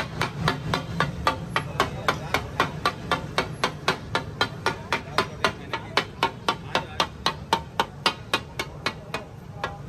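Rapid chopping of sliced onions with a metal blade on a large steel tawa. Each stroke gives a sharp clack of metal striking the griddle through the onions, about four a second in a steady rhythm.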